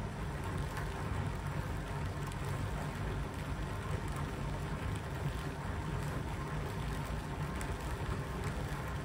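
Three small DC motors turning a 3D-printed plastic bearing, with BBs as its rolling elements, under a hanging load of about 25 lb: a steady whir and rumble of motors and bearing running.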